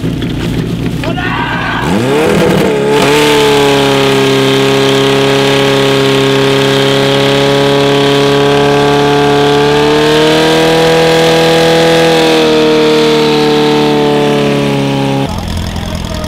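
Portable fire pump's engine revving up sharply about two seconds in, then held at high revs as a loud steady drone while it drives water out through the attack hoses. Its pitch rises slightly midway, and the sound cuts off abruptly near the end.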